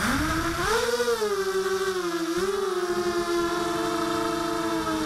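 Motor and propeller of a small model UAV, heard from its onboard camera. The pitch rises sharply at the start as the throttle comes up, dips and climbs again twice, then holds a steady whine.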